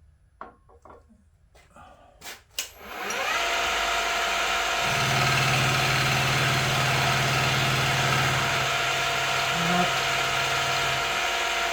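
A few clicks of tool handling, then the milling machine's spindle motor starts, winds up to speed within about half a second and runs steadily. A low hum joins about five seconds in and stops near the end, while the freshly changed smaller cutter makes a light pass on the work.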